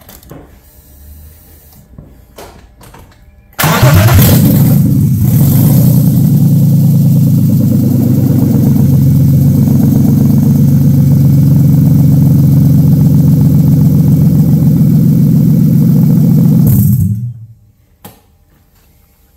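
BMW M52 straight-six engine, fitted with an M50 intake manifold on a freshly remapped MS41 ECU, firing up suddenly about three and a half seconds in and running steadily for about thirteen seconds before it is switched off. It is quite loud because it has no exhaust fitted.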